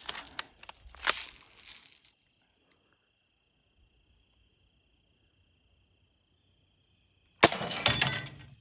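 A few short sharp cracks from a gun being fired at a microwave in the first two seconds, then a faint steady high insect trill. A loud burst of noise lasting about a second comes near the end.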